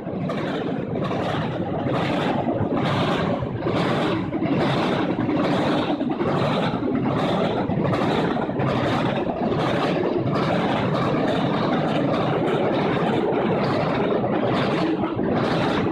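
Double-stack container freight train rolling across a steel trestle bridge: a steady rumble and rattle with a regular clack of the wheels about twice a second.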